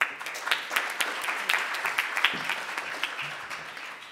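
Audience applauding: a dense patter of many hands clapping that starts suddenly and dies away over the last second.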